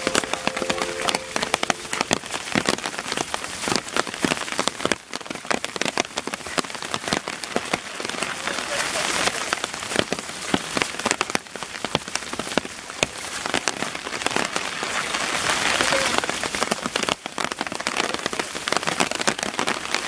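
Heavy rain falling, a steady hiss with many sharp raindrop hits close to the microphone.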